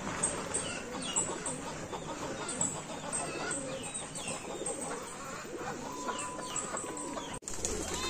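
A flock of domestic pigeons cooing and flapping their wings as they feed, with many short high chirps from other birds. The sound cuts off abruptly near the end.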